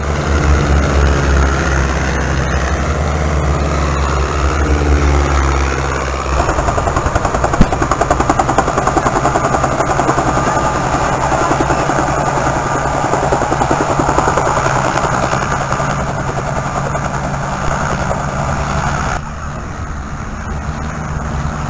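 Piston engines of two low-flying biplanes passing by, their pitch sliding as they go. About six seconds in, this gives way to the rhythmic blade chop of a light helicopter hovering close by. Near the end comes the quieter engine sound of biplanes farther off.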